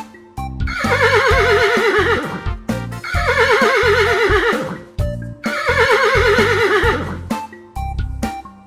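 A horse whinnying three times, each call about a second and a half long with a quavering pitch, over children's background music.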